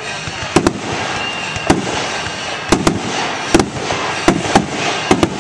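Aerial firework shells bursting in a display: about ten sharp booms at irregular intervals, several in quick pairs, over a steady background hiss.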